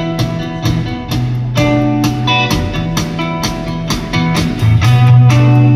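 Live rock band playing: electric guitars ring over held bass notes that change every second or so, with a steady drum beat of about three to four strokes a second.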